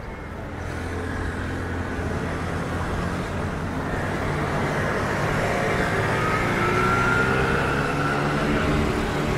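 Street traffic: a motor vehicle's engine running close by, growing steadily louder as it approaches. A thin, slightly rising whine comes in past the middle.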